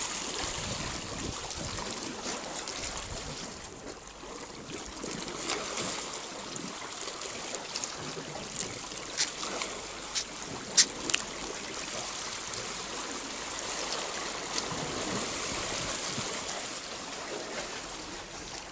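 Seawater lapping and trickling among shoreline rocks, a steady wash, with a few sharp clicks near the middle.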